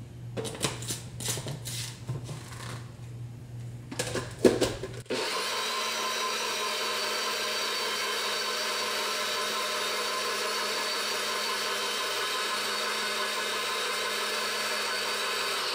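Clicks and knocks as the blade lid is screwed onto a NutriBullet cup and the cup is pressed onto the motor base. Then, from about five seconds in, the NutriBullet blender runs steadily at full speed, blending a liquid mix.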